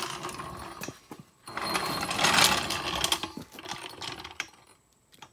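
Small floor jack rolled across a concrete floor, its metal wheels rattling and grinding in two stretches, the louder one about two seconds in, then dying away.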